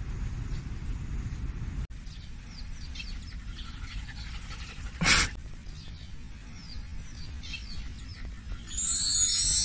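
Outdoor ambience: a low rumble that cuts off about two seconds in, then small birds chirping faintly, with one short loud noisy burst about halfway through. Bright, chiming music starts near the end.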